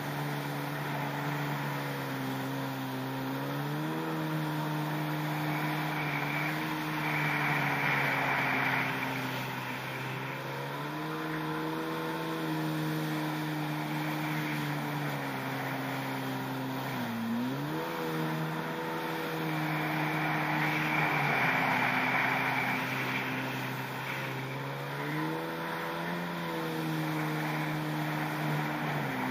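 Yamaha SuperJet stand-up jet ski's two-stroke engine running under way, its pitch rising and falling with the throttle, with a sharp drop and quick recovery about 17 seconds in. The rush of water and spray swells twice over the engine.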